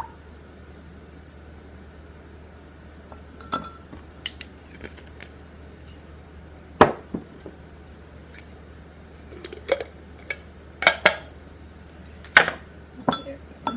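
Scattered clinks and knocks of a measuring spoon against a glass measuring cup, and of kitchen items being handled on a wooden table, as a salad dressing is measured out. The sharpest knock comes about seven seconds in, with a cluster of several more in the last three seconds.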